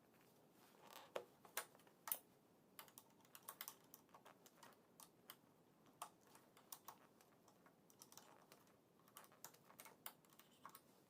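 Faint, irregular metallic clicks and taps of a nut being tightened with a spanner to mount a motorcycle's ignition lock.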